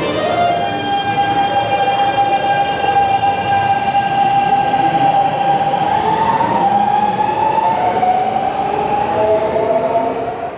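Keikyu New 1000 series aluminium-bodied train accelerating away, its Siemens GTO VVVF traction inverter (the 'Doremifa inverter') singing: the last step of its rising musical scale at the start, then a steady high whine that steps up in pitch about six seconds in, over wheel and rail noise, fading near the end as the train draws away.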